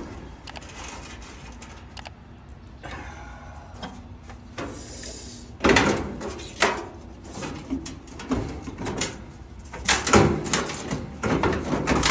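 Dryer parts being handled during a motor swap: a stretch of scraping, then several sharp clunks and knocks.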